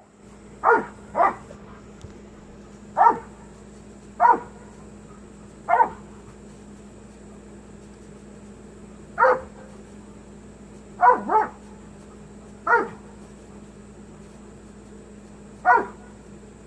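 Doberman barking in about ten short, sharp barks at irregular intervals, a couple of them coming in quick pairs.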